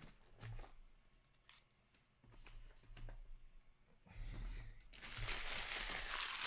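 A trading-card pack wrapper crinkling loudly as it is handled and opened, starting about five seconds in after a few light handling clicks.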